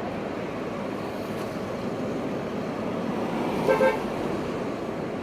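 Steady street traffic noise, then about three and a half seconds in a car horn gives two quick short toots.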